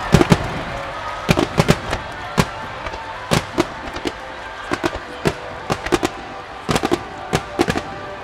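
Aerial fireworks going off in an irregular string of sharp bangs, two or three a second, with music playing underneath.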